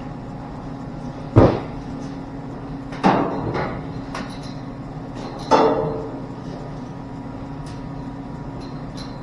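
Metal car parts clanking as they are handled and set down: three loud clanks, about a second and a half, three and five and a half seconds in, the last with a short ring, over a steady background hum.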